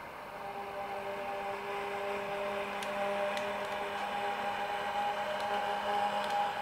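A sound-equipped model of a PKP ET21 electric locomotive running past, its sound decoder playing a steady electric hum of several held tones that grows slowly louder. A few faint clicks come from the wheels on the track.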